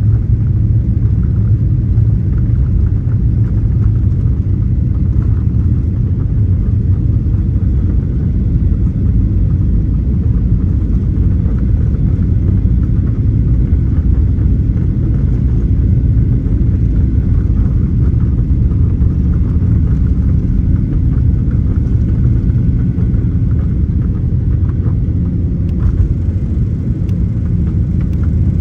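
Boeing 737-800's CFM56 turbofans at takeoff power, heard from inside the cabin as a loud, steady low rumble.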